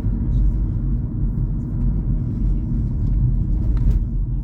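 A car being driven along a road: a steady low rumble of tyre and engine noise.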